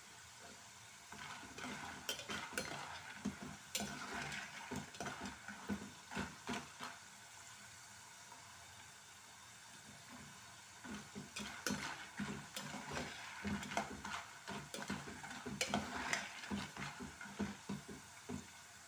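A perforated steel slotted spoon scrapes and clinks against a metal pot as it stirs banana chips deep-frying in hot oil, over the steady sizzle of the oil. The stirring comes in two spells, with a pause of a few seconds in the middle. The oil is still bubbling hard as moisture cooks out of the chips.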